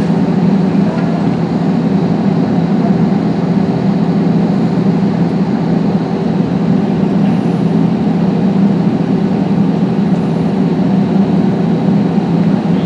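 Loud, steady engine drone with a low hum, typical of running jet engines and ground equipment on an airport apron during boarding. It starts abruptly and holds level throughout.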